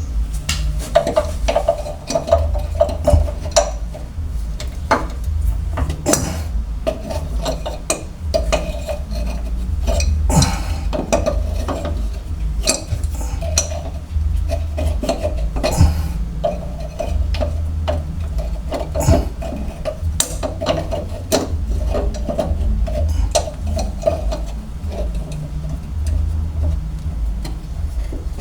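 Scattered clinks and knocks of a kitchen faucet's metal parts and hose fittings being handled and worked loose, over a steady low hum.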